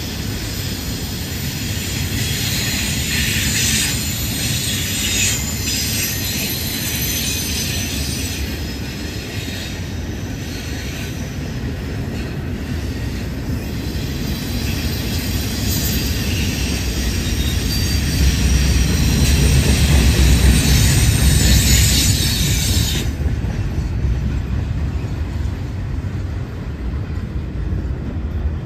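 Double-stack intermodal freight cars rolling past, steel wheels rumbling on the rails with a high wheel squeal on the curve. The rumble swells to its loudest about two-thirds through, and the squeal cuts off abruptly about four-fifths through while the rumble goes on.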